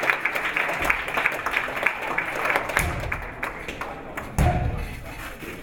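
Spectators clapping and calling out, a quick irregular patter of claps that thins out after about two and a half seconds, followed by several low, dull thuds.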